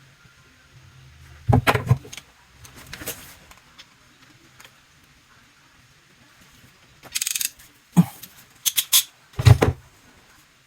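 Tools and plumbing parts being handled: several separate clatters and clicks, with a brief rustling scrape about seven seconds in.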